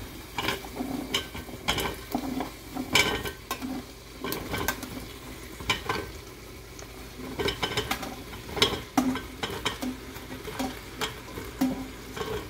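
Turnip chunks being scraped with a spoon out of a steel bowl and dropped into hot oil and fried masala in an aluminium pressure cooker: irregular clinks of the spoon on the bowl and soft thuds as the pieces land, over a sizzle from the pot.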